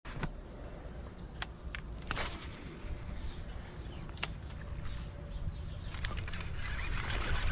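Insects buzzing and chirping steadily, about two chirps a second, over outdoor background noise. A few sharp clicks are scattered through it, and the sound grows a little louder toward the end.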